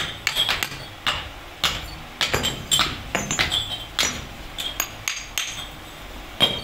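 Hand hammer striking freshly cast metal pump housings to break off the moulding sand: irregular sharp metallic knocks, a few a second, each with a short ring, pausing briefly near the end.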